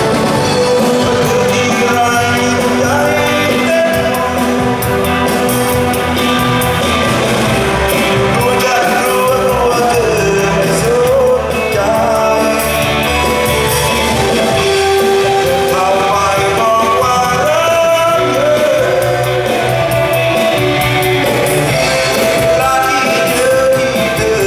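Live band with guitars and a singer playing Lao dance music, amplified through PA speakers in a large hall.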